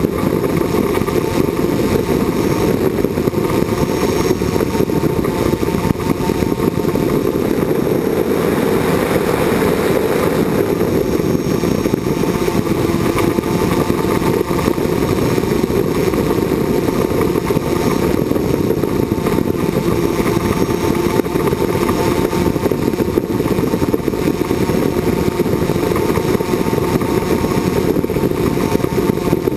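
Multirotor drone's motors and propellers running steadily in flight, heard through the camera it carries: a loud, even hum with a few faint high whining tones over it.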